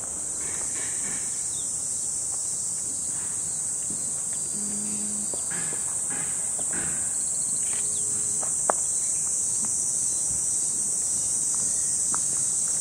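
Insects buzzing in a steady, high, unbroken drone, with a few short clicks over it, the sharpest about two-thirds of the way in.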